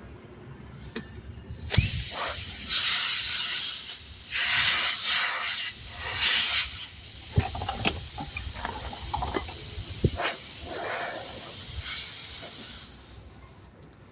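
Pressurised air hissing in three short bursts of about a second each during a tubeless car tyre puncture repair, with sharp clicks and knocks between them.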